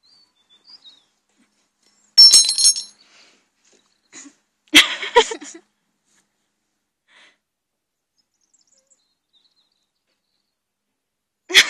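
A woman coughing and spluttering on a mouthful of dry ground cinnamon: a harsh burst about two seconds in, a sharper one around five seconds, and another near the end, with little sound between.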